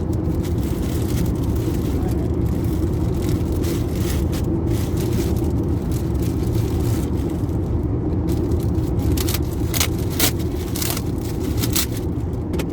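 Steady low rumble of a car heard from inside the cabin, with a few short rustles and clicks, mostly in the second half.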